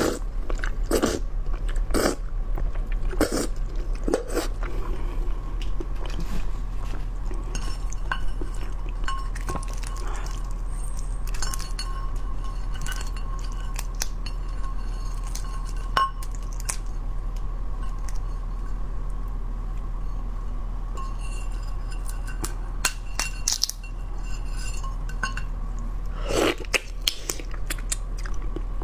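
Close-miked eating of raw crab: chewing and biting the crab meat and roe, with crunching and cracking of shell and leg pieces and occasional clinks against the ceramic plate. The crunching is densest in the first few seconds and again near the end.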